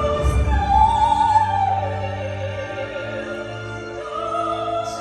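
Operatic singers with full, rich voices singing a chorus in long held notes, with a new phrase starting near the end.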